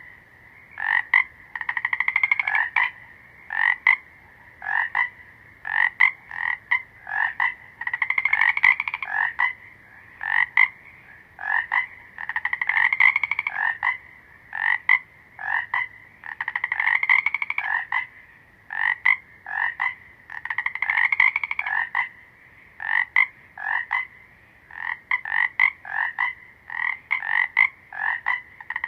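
Frogs croaking: short sharp calls in quick runs, with a longer pulsed trill about every four seconds, over a steady high chorus of calling.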